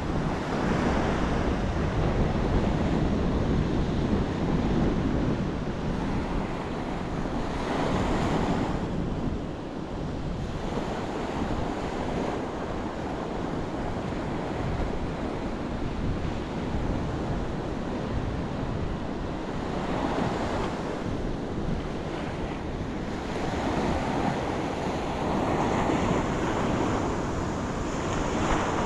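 Ocean surf breaking and washing up a sandy beach, swelling and easing as waves come in, with wind buffeting the microphone as a low rumble.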